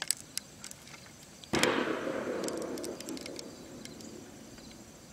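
A distant gunshot about a second and a half in, its boom rolling and fading away over about two seconds. A few faint clicks near the start.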